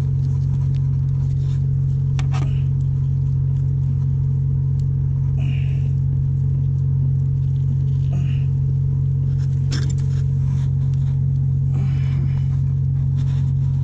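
Ship's engine and machinery drone: a loud, steady low hum with no change in level, with a few light clicks and taps from handling the antenna fitting.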